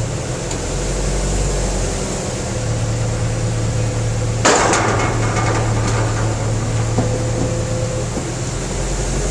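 An engine running steadily, with one loud metallic clank that rings briefly about halfway through and a lighter knock a little later, from heavy pipe work at a well.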